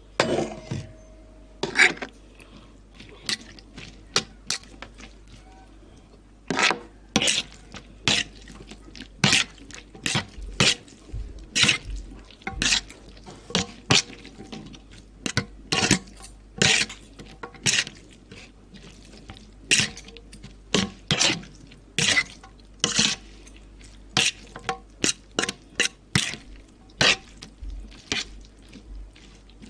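Someone eating Indomie instant noodles mixed with Cheetos: an irregular run of sharp clicks, one or two a second, from crunching bites, wet mouth sounds and a utensil clinking on the dish.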